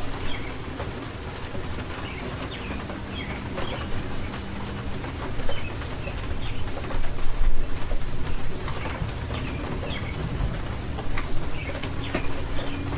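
Steady rain, with short bird chirps coming at intervals over it.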